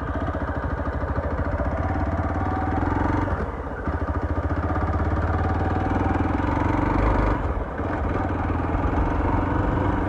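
Hero Xpulse 200's single-cylinder engine running as the motorcycle rides slowly along a dirt track. The engine sound drops briefly twice, about three and a half and seven and a half seconds in.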